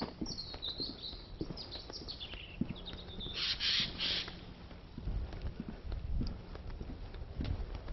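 Footsteps knocking steadily on a wooden boardwalk, with small birds chirping in the first couple of seconds and a louder, harsh bird call about three and a half seconds in.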